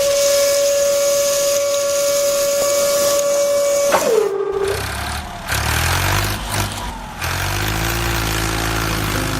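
A long, steady horn blast that sags in pitch and cuts off about four seconds in. A low engine rumble follows, rising and falling in pitch.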